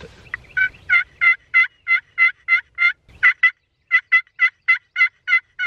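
Hand-held turkey call worked by a hunter in a long, loud series of evenly spaced hen yelps, about three a second, with a short break and a knock about three seconds in. It is aggressive calling to fire up and draw in a gobbler.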